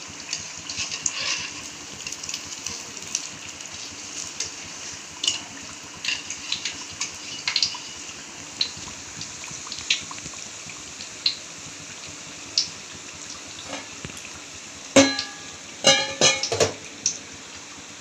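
Banana-flower vadais deep-frying in oil in a steel kadai: a steady sizzle with scattered pops and crackles, the bubbling settled down, the sign that the fritters are cooked crisp. About three-quarters of the way through, a wire skimmer clinks and rings against the steel pan several times as the vadais are lifted out.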